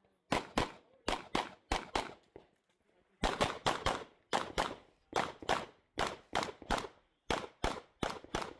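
Glock 17 Gen 5 9mm pistol fired in rapid pairs of shots, a pair about every three-quarters of a second, with a pause of about a second a little over two seconds in before the pairs resume.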